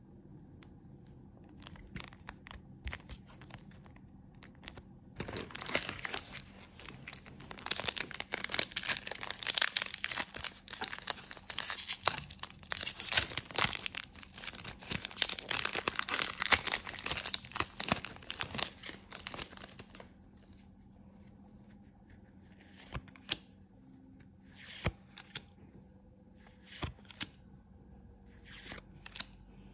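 A trading-card booster pack wrapper being torn open and crinkled, starting about five seconds in and lasting about fifteen seconds. The rest is a few light clicks of cards being handled and flipped.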